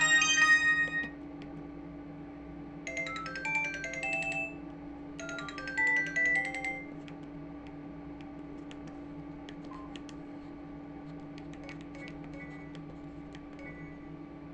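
Samsung SGH-E250 mobile phone playing its built-in ringtones: a melody that ends about a second in, then two short melodic phrases of about a second and a half each, starting at about three and five seconds. After that only a steady low hum and faint clicks remain.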